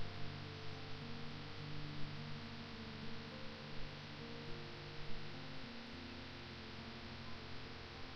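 Quiet background music: soft held notes that move slowly from one pitch to the next, over a steady hiss.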